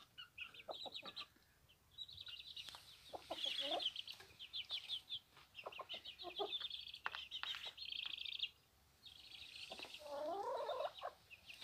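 Chickens, a hen with her half-grown young, clucking in short calls over near-constant high chirping, with a longer call that rises and falls near the end.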